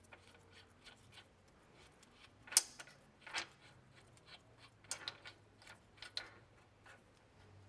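Scattered small metallic clicks and ticks of a washer and nut being fitted by hand onto a front control arm's bushing bolt, the sharpest click about two and a half seconds in, over a faint low hum.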